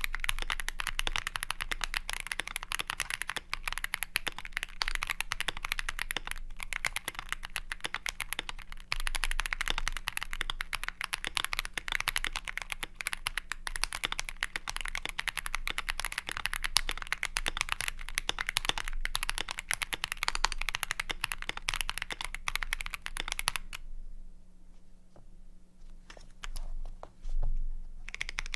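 Fast, continuous typing on a gasket-mounted GMMK Pro custom mechanical keyboard with Boba U4T tactile switches, an aluminium plate, foam mods and PBT keycaps. The keystrokes come as a dense patter of clicks. The typing breaks off about four seconds before the end, where a couple of low thumps are heard, and it starts again right at the end.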